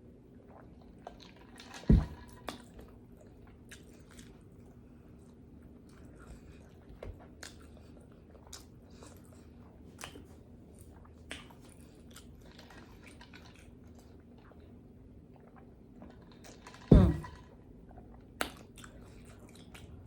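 Close-miked chewing and biting of food, with many small wet clicks and crunches. Two loud low thumps come about two seconds in and again near the end.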